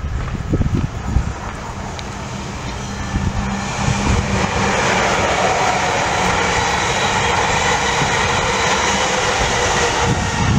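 South Western Railway passenger train passing at speed: a steady rushing of wheels on rail that builds from about four seconds in and holds.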